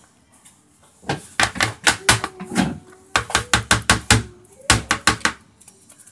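Metal luncheon meat tin knocked again and again on a plastic cutting board: quick runs of sharp knocks, several a second, in three bursts.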